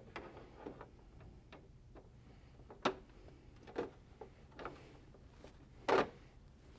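Plastic and metal clicks and knocks as a TV stand is slid onto its guide pins and locks into place on the back of the TV, with two sharper knocks, about three seconds apart, standing out over a low hum.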